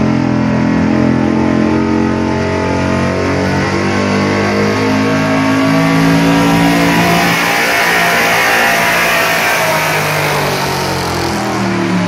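Pickup truck engine held at high revs under heavy load as it drags a weight-transfer pulling sled along the dirt track, with a rushing haze of tyre and track noise that is loudest about two-thirds of the way through.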